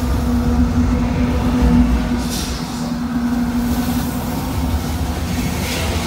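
CSX freight train passing close by: the diesel locomotive's steady engine drone over a low rumble, fading about halfway through as the hopper cars roll past. Two brief hisses, about two seconds in and near the end.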